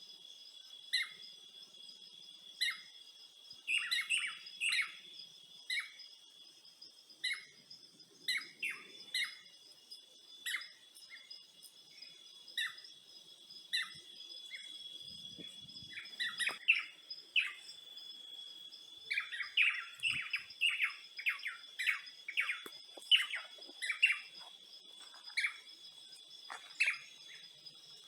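Birds chirping in short, frequent calls, sometimes in quick clusters, over a steady high-pitched hum of insects.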